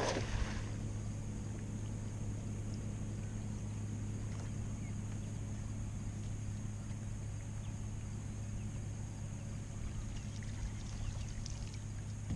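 A boat motor running at a steady low hum, over faint water noise, with a short knock right at the start.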